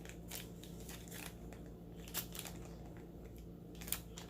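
Faint crinkling and handling of packaging as a small box is opened, with a few sharp light clicks scattered through.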